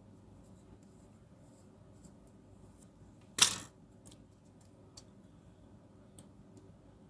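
A single sharp clack of a small hard object knocking or being set down on a hard surface about halfway through, ringing briefly, among faint light clicks of small parts being handled.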